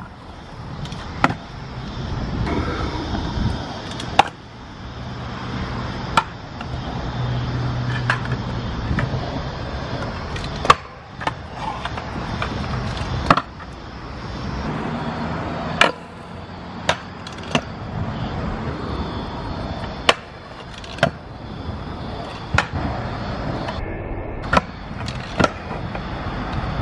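Stunt scooter wheels rolling over concrete skatepark surfaces, with sharp clacks now and then as the scooter lands and strikes ledges.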